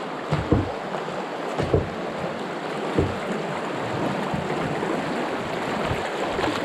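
River water rushing through a riffle around a moving canoe, a steady rushing hiss, with a few short low thumps about half a second, one and three-quarter seconds and three seconds in.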